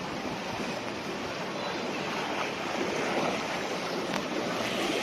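Shallow floodwater sloshing and splashing in a steady rush, a little louder over the last couple of seconds.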